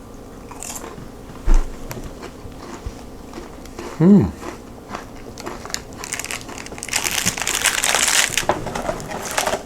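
Potato chips being bitten and chewed close to the microphone: dense crunching starts about seven seconds in and goes on to the end. Before it come light crinkles and clicks from handling the packaging, a thump about a second and a half in, and a short falling 'mm' from the eater about four seconds in.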